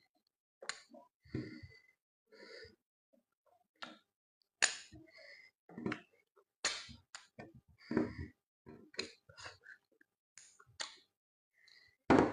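Close-up mouth sounds of a person eating pounded yam with slimy ogbono soup: wet lip smacks, chewing and swallowing in short, irregular bursts, with breathing between them. A longer, louder burst comes near the end.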